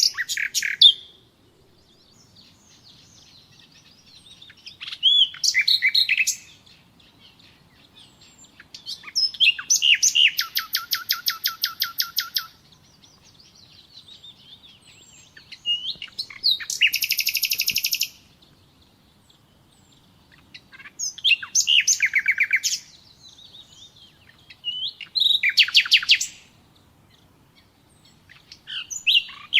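Common nightingale singing: about six loud phrases a few seconds apart, each a quick run of fast repeated notes, with faint softer notes in the pauses between.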